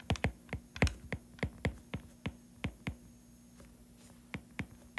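Stylus tapping and clicking on a tablet screen while writing numbers by hand: a quick, irregular run of light taps that pauses about three seconds in, then a few more.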